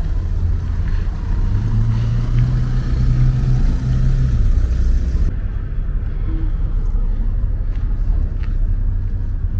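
A road vehicle's engine passing close by over a steady low rumble. Its low hum swells about a second and a half in and fades after about four and a half seconds.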